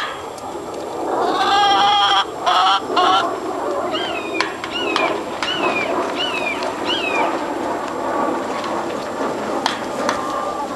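Domestic hens calling while they feed: a wavering, quavering call in the first few seconds, then a run of short, high chirps, each falling in pitch, about two a second.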